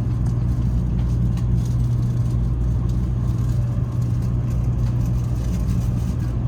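Steady low rumble and hum inside the cabin of a Taiwan High Speed Rail train in motion, even in level throughout.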